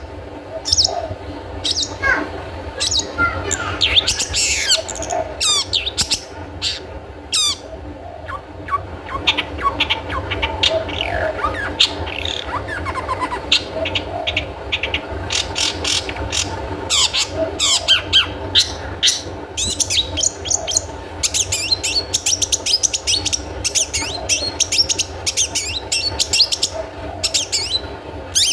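Long-tailed shrike (cendet) singing the 'toet toet' song: a fast, varied chatter of sharp chirps and quick sweeping calls, sparser at first and packed tight from about halfway through, over a low steady hum.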